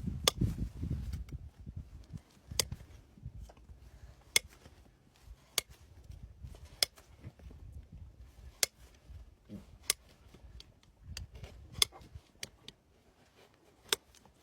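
Hoof nippers snapping through hoof wall: a dozen sharp, separate clicks, roughly one a second and unevenly spaced, over low handling rumble.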